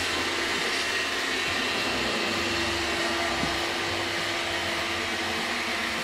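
iRobot Roomba 691 robot vacuum running: the steady whir of its suction motor and brushes as it cleans along the wall edge, at an even level throughout.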